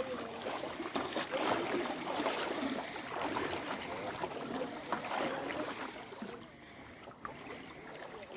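Legs wading through knee-deep lake water, sloshing and splashing with each stride, with a mesh prawn net dragged alongside through the water. The splashing dies down about six seconds in as the wading stops.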